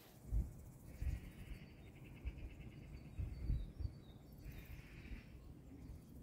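Countryside ambience: wind buffeting the microphone in irregular low thumps, with faint bird chirps and a high, pulsing buzz heard twice.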